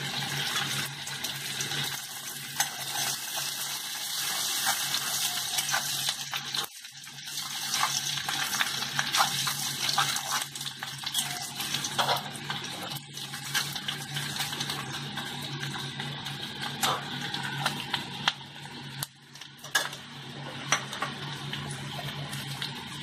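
Chopped onions sizzling in hot mustard oil in a metal kadai, with a metal spatula scraping and clicking against the pan as they are stirred. A steady low hum runs underneath.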